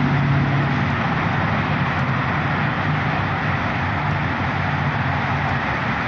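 Steady engine drone with a rushing noise and a low hum that eases after the first second and swells again midway.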